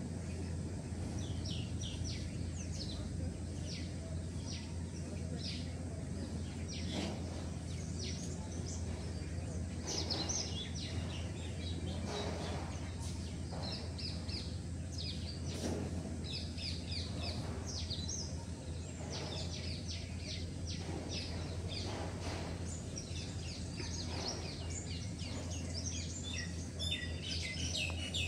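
Small birds chirping: many short, high calls scattered throughout, over a steady low background hum.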